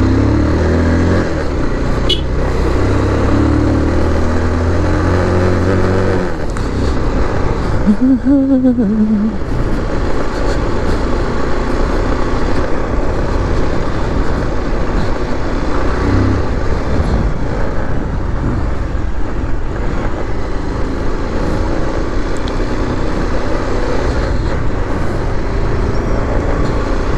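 A motor vehicle running, with road and wind noise, heard from on board while moving through traffic. A steady engine note holds for the first six seconds, and a short wavering tone rises and falls about eight seconds in.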